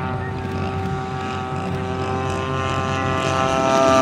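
Propeller engine of a large-scale RC model warbird running steadily, growing louder toward the end with its pitch creeping slightly upward.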